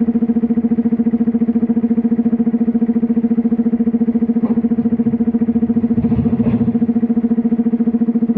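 Komatsu PC210LC-10 hydraulic excavator's diesel engine and hydraulics running under load with a steady, even drone, in the middle of a loading cycle. Some clatter comes a little past the middle as the bucket's load of stone drops into the truck's dump body.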